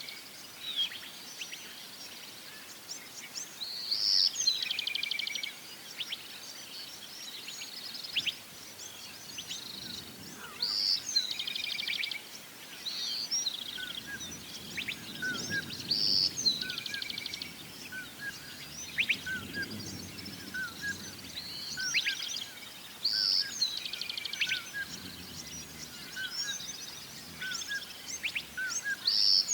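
Songbirds singing: one bird repeats the same short, high, trilled song phrase every four to five seconds, with smaller chirps from other birds in between. A faint low rumble comes in through the middle.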